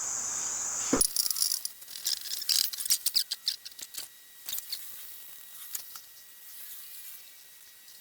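A steady high-pitched chirring stops abruptly about a second in. A quick run of light clicks and taps from hands working on the job follows, thinning out after about four seconds.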